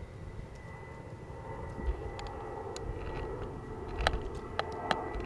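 Steady low outdoor rumble with a faint steady high tone, broken in the last second and a half by three sharp clicks, the first the loudest.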